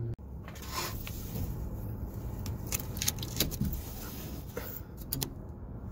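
Handling noise of a camera phone being moved and set in place: scuffing and rubbing with several scattered light clicks and knocks.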